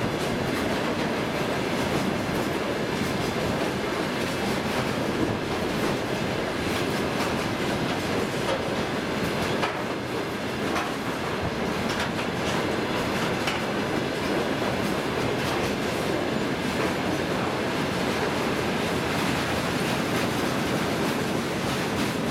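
Freight train of railway tank cars rolling past at speed: a steady rumble of steel wheels on the rails, with occasional clicks as the wheels cross rail joints.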